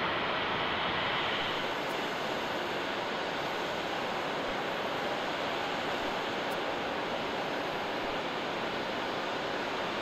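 Steady roar of a jet airliner's engines, easing off slightly in the first couple of seconds, with a faint steady whine coming in about halfway.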